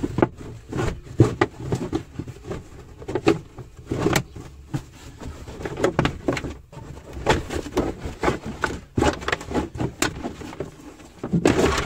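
Felt carpet lining being pulled back and handled by hand: irregular rustling and scraping with scattered sharp knocks, loudest near the end.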